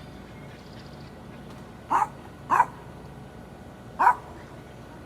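A dog barking three times: two barks close together, then a third about a second and a half later.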